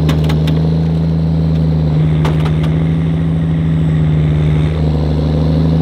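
Prinoth snowcat's diesel engine running steadily at close range, its note pulsing for a few seconds from about two seconds in. A few sharp metallic knocks near the start and again about two seconds in.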